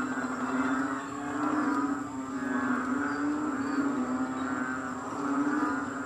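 A chorus of many frogs calling together after rain: overlapping low droning calls with a higher, rapidly pulsing layer, swelling and fading in waves every second or two.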